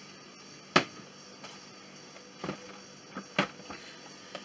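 Several sharp clacks and knocks of a Delimix kitchen robot's stainless-steel bowl being handled and set onto its motor base. The loudest comes within the first second, followed by three lighter knocks.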